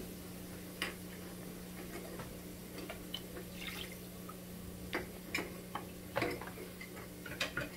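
Rinse water from an emptied tomato sauce can pouring and dripping into a crock pot of beans, with scattered light clicks and taps.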